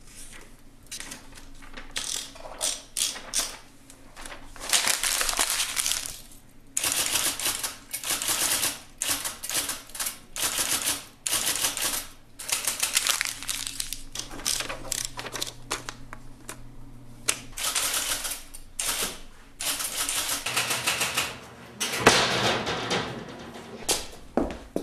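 Typewriter being typed on: rapid keystrokes in bursts of a second or two, with short pauses between.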